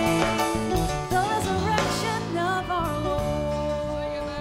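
Music: a singer's wavering voice over a band with bass and drums, slowly getting quieter as it fades out.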